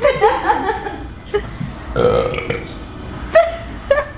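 Deliberate 'trucker burps' forced out by a person: a long, wavering burp at the start, another about two seconds in, and two short ones near the end.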